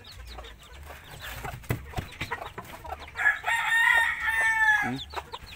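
Native chicken chicks peeping in quick, high chirps, and about three seconds in a rooster crows once, a long call of almost two seconds that drops in pitch at the end.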